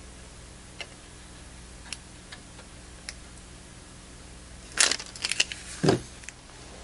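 Thin protective plastic film being peeled off a handheld oscilloscope-multimeter's LCD screen: a few faint ticks at first, then a short burst of crinkling and crackling about five seconds in as the film comes away.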